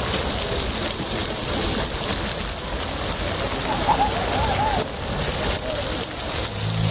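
Many water jets of a ground-level splash-pad fountain spraying up and splashing down onto wet paving, a steady rushing hiss.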